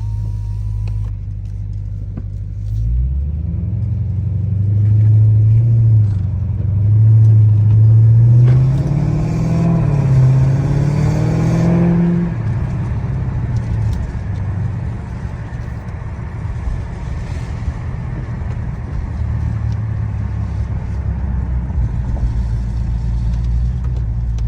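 Dodge Charger Daytona 392's 6.4-litre HEMI V8 accelerating. A low rumble rises in pitch in steps from about three seconds in, peaks and falls off at about twelve seconds, then settles back to a steady low drone as the car cruises.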